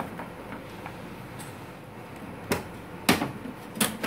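Plastic clunks and knocks from an HP LaserJet Pro MFP M126nw as its top cover is handled and lifted open to get at the toner cartridge. There is quiet handling first, then three sharp knocks in the second half, a little over half a second apart.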